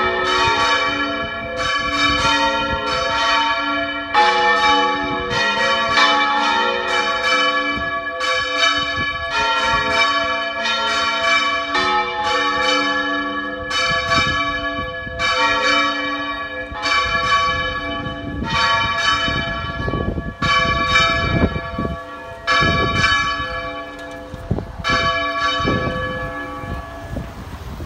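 Three bronze church bells (182, 319 and 512 kg) swung full circle in the Valencian volteig style, their strikes overlapping in a continuous run of about two a second with long ringing tones. A low rumble of wind on the microphone gusts under the bells, strongest in the second half.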